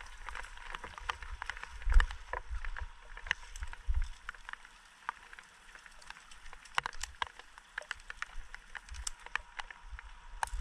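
Footsteps on wooden boards, with scattered light clicks and a few dull thumps over a faint steady hiss.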